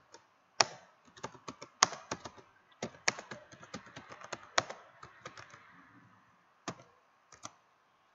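Typing on a computer keyboard: irregular keystrokes in quick runs, with a pause of about a second two-thirds of the way through before a few single keystrokes.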